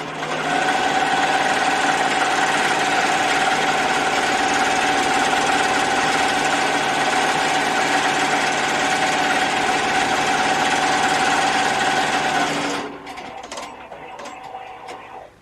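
Melco commercial embroidery machine stitching at a steady fast rate with a constant whine, running on a newly installed motherboard. It stops abruptly about twelve seconds in.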